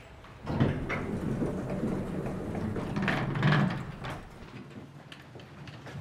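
Lift (elevator) doors sliding, a low rumbling slide that starts about half a second in and dies away about four seconds in.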